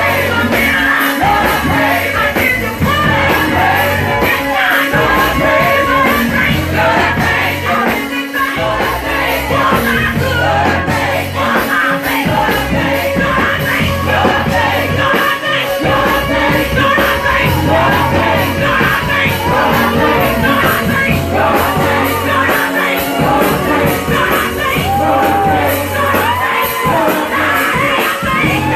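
Gospel praise-and-worship song: a band with a steady bass line under singers.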